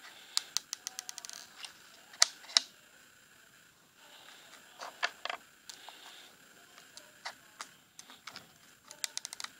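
Blue glitter slime pressed and poked with fingers, giving sharp little clicking pops from trapped air, in quick runs, with two louder pops a little after two seconds.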